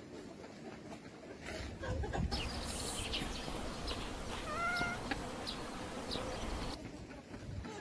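Chickens clucking, with one short wavering call a little past the middle.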